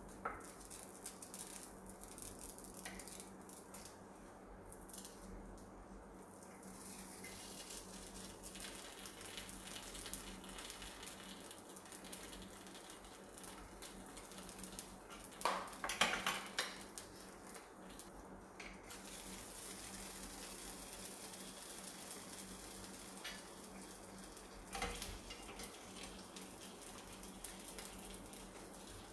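Bread sandwich in egg frying with a faint steady sizzle in a nonstick pan, with a wooden spatula scraping and tapping against it. A louder clatter of utensils on the pan about halfway through, and another shorter one later.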